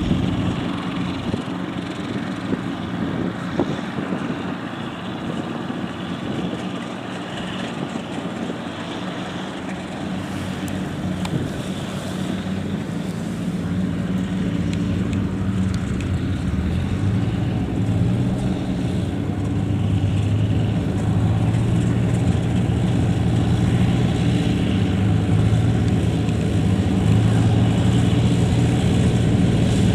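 Kubota DC70 combine harvester's diesel engine running steadily while harvesting rice, with the threshing and cutting machinery noise over it; it grows louder through the second half.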